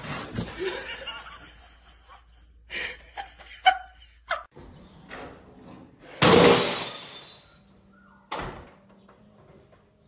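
A loud shattering crash about six seconds in, lasting over a second, with a shorter thud a second later. A few scattered knocks come before it.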